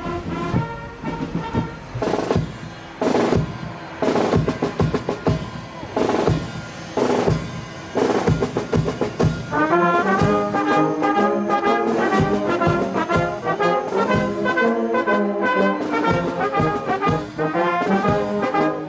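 Brass band playing a national anthem: heavy drum and cymbal strikes about once a second open it, then the full brass comes in with the melody about halfway through.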